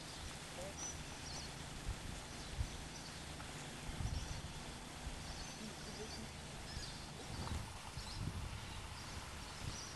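Faint outdoor ambience: short high chirps, likely a small bird, repeating about once a second over a low rumble with occasional soft thumps.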